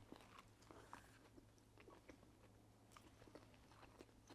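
Faint chewing of a Big Mac: soft, scattered mouth clicks.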